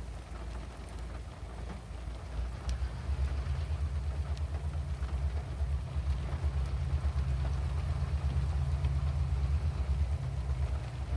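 Two TasRail diesel locomotives, 2054 and 2051, hauling a coal train toward the listener: a deep, pulsing engine rumble that grows louder about two and a half seconds in and stays strong as they come closer.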